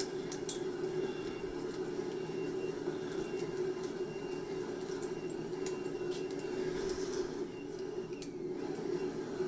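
Monarch 10EE lathe running at its lowest spindle speed on a retrofitted drive while taking a heavy cut of about a tenth of an inch per side. It gives a steady hum with a faint high whine that comes and goes and a few light ticks.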